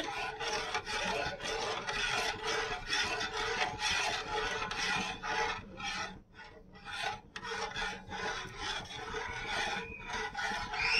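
Metal spoon scraping around the bottom and sides of a stainless steel saucepan while stirring a liquid, in repeated strokes about two a second, with a short pause about six seconds in.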